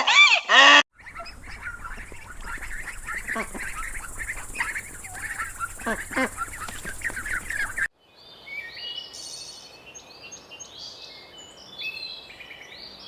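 Loud honking calls for about the first second, then a flock of birds calling and chattering over a low hum, then high, varied birdsong from about eight seconds in.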